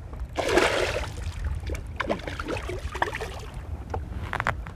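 A hooked pike thrashing at the surface beside the boat: a loud splash about half a second in, then fainter splashes, over a low wind rumble.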